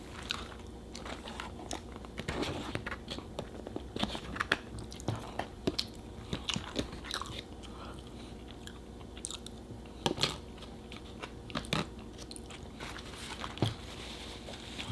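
A person chewing and biting into In-N-Out burger and animal fries close to the microphone. Short, irregular mouth clicks and smacks run throughout, with a few sharper ones near the middle and near the end.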